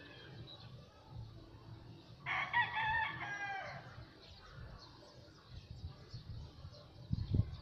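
A rooster crowing once, about two seconds in, a single call lasting about a second and a half, with faint bird chirps around it and a low thump near the end.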